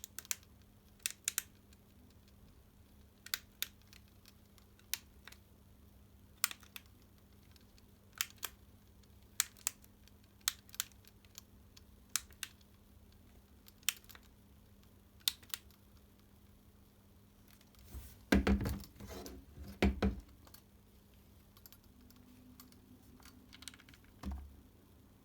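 Push-button switch of a Makita ML807 work light clicking repeatedly, mostly in quick press-and-release pairs every second or two. Near the end comes a stretch of handling and rustling, then a single thump.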